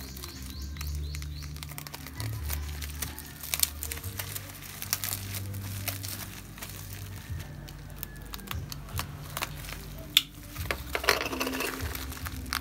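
Plastic crinkling and rustling as a padded bubble mailer is handled and a clear plastic bag is pulled out of it, in irregular crackles with a sharp snap about ten seconds in.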